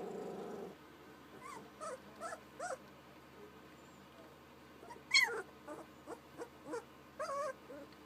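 Young puppies whimpering: a string of short, high, rising-and-falling whines, several quick ones early on and a louder one about five seconds in, followed by a few more. A short muffled noise sounds at the very start.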